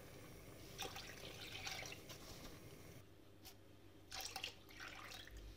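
Milk poured from a glass into a pot of just-boiled sugar syrup: a faint liquid pouring and splashing, in two short spells.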